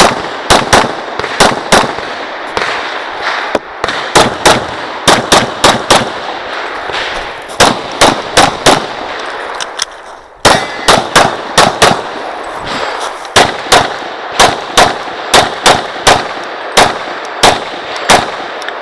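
Rapid pistol fire from a Glock 35 in .40 S&W, about thirty loud shots mostly in quick pairs and short strings, with echo ringing between them and a short pause about ten seconds in.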